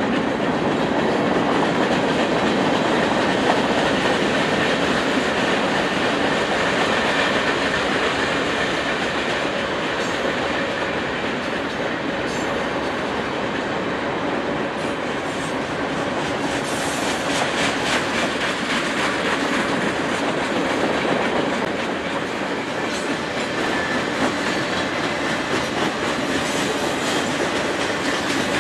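Freight cars of a long mixed freight train rolling past: a steady rumble of steel wheels on rail, with a run of quick clicking over rail joints partway through.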